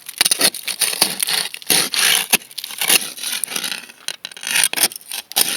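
An ice scraper scraping a thick layer of ice on a car window in a series of short, uneven strokes.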